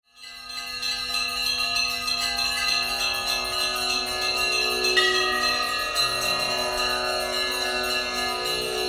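Bells ringing in many overlapping, sustained tones as an opening music layer, rising in from silence at the start, with further tones joining about five and six seconds in.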